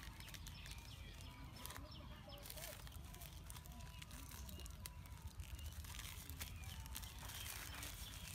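Faint crinkling and rustling of plastic seasoning packets being handled as their contents are poured into a clay mortar, over a low steady rumble.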